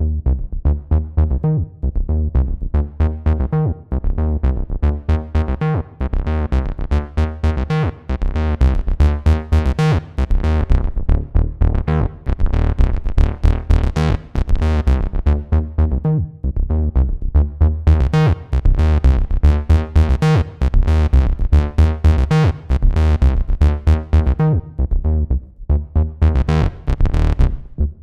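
Behringer TD-3-MO analogue bass synthesizer playing a fast acid bassline sequence of short, repeating notes, its filter opening up brighter at times and closing again.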